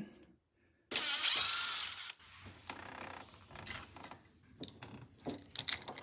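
A sudden rushing hiss lasting about a second, then light metallic clicks and rattles as the smart lock's deadbolt and lock parts are handled.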